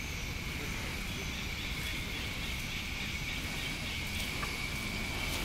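Steady high-pitched insect drone on one even tone, over a low rumbling noise on the microphone.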